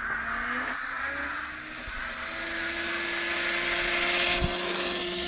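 A motor running with a steady whine that comes in about two seconds in and grows louder.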